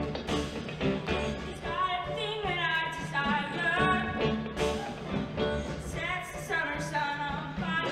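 Show choir singing with live band accompaniment: many voices with held notes over a beat.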